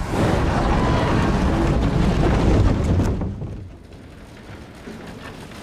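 Loud, deep rumbling noise that drops away about three seconds in, leaving a quieter steady noise.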